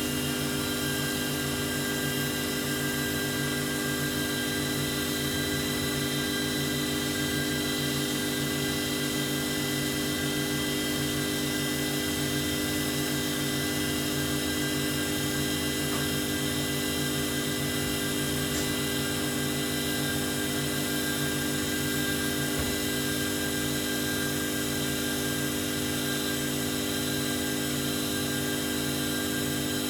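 Small-diameter multi-function automatic lathe running: a steady machine hum with several constant tones, unchanging and without pauses.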